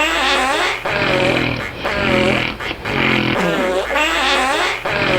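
Snoring that comes out as fart-like noises, repeating in a regular cycle: a low buzzing breath, then a longer wavering rasp, about every two and a half seconds.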